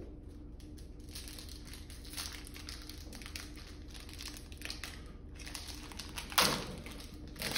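Foil trading-card pack being handled and opened: a run of soft crinkling and rustling, with one louder burst of crinkling about six seconds in.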